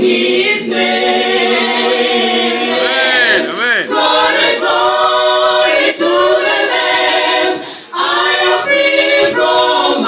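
Women's gospel vocal group singing a cappella in harmony into microphones, with long held notes and a swooping vocal run about three seconds in.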